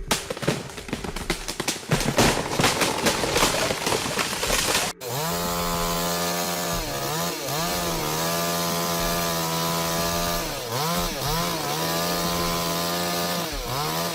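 About five seconds of dense cracking and crashing. After an abrupt cut, a two-stroke chainsaw runs at high speed in a cut, its pitch dipping and recovering three or four times as it takes load.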